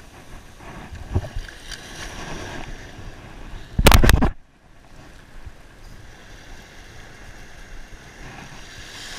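Light surf washing over the sand with wind on the microphone. About four seconds in, a loud burst of noise lasting about half a second comes as a small striped bass is grabbed at the water's surface.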